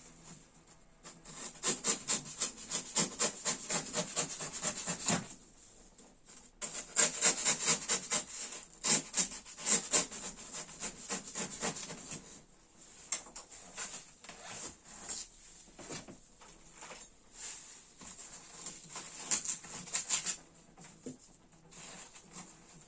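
Quick back-and-forth scraping strokes, about three or four a second, in two runs of several seconds with a short pause between, then slowing to scattered single strokes.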